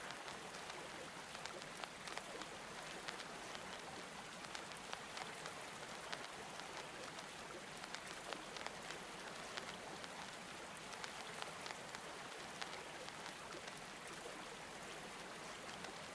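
Faint steady rain ambience, an even hiss with scattered light ticks of drops.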